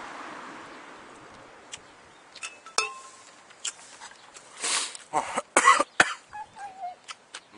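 Wind on the microphone dies away, then come light clicks and a clink of tableware being handled. About five seconds in there is a short run of harsh coughs and throat clearing, the loudest sound here.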